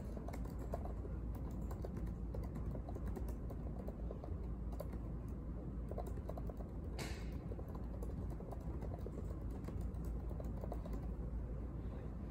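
Typing on an Apple laptop keyboard: quick, irregular key clicks that come in short runs, over a steady low room hum, with one brief hiss about seven seconds in.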